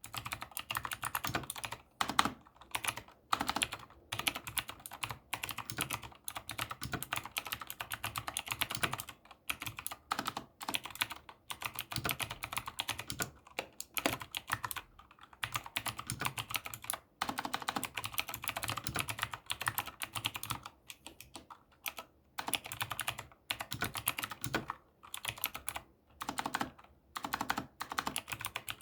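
ZIYOULANG K68 mechanical keyboard with clicky Drinkey blue switches being typed on, a fast clatter of key clicks in bursts broken by short pauses.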